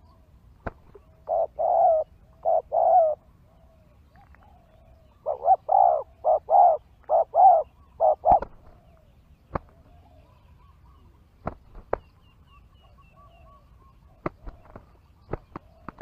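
Spotted doves cooing: two runs of the repeated low coo phrase, one starting about a second in and a longer one from about five to eight seconds. Scattered sharp snaps follow, coming thicker near the end as two doves scuffle with wings raised.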